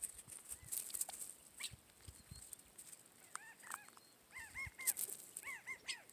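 Quail giving soft, short call notes while feeding, mostly in quick runs of three, with scattered light clicks and taps.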